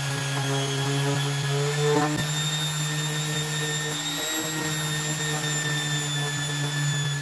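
Electric random orbital sander running at a steady speed against a steel knife blade, a steady motor drone with a high-pitched whine.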